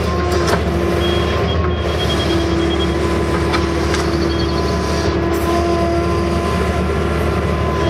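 A Case CX160 excavator's diesel engine runs steadily as the operator works the bucket, heard from inside the cab. A steady whine sits over the low drone.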